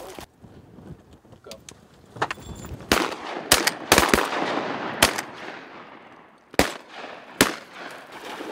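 A volley of shotgun fire from several guns: about seven shots in quick succession over some four and a half seconds, each ringing out and fading.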